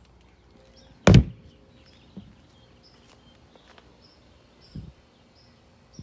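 An RV's exterior storage compartment door slammed shut about a second in, followed by two much softer thuds.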